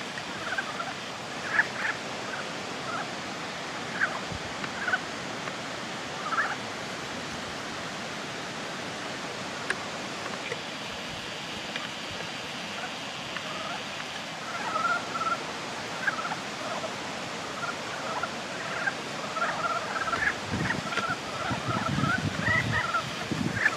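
Ezo brown frogs (Rana pirica) calling in a breeding pond: many short notes, scattered at first and coming thicker from about halfway, over a steady hiss. Low rumbles near the end.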